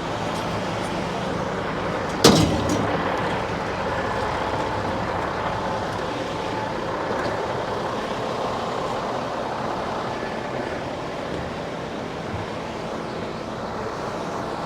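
Steady running of a vehicle engine under wind noise, with one sharp knock or bang about two seconds in.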